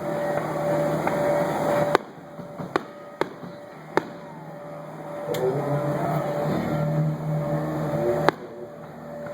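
Fireworks going off: about six sharp bangs at uneven intervals, over a steady low hum with a held tone.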